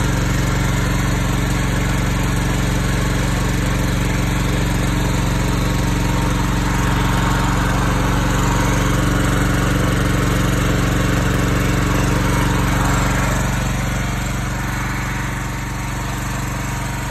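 Four-stroke gasoline generator engine running steadily at a constant speed, dipping slightly in level near the end.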